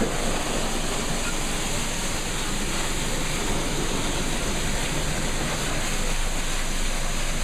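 Pressure washer wand spraying a jet of water onto a car's engine bay, a steady rushing spray with no break.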